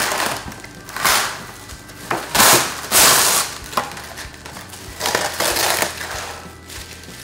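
Glad plastic wrap being pulled off its roll and torn from the box, crinkling and crackling in a string of short bursts.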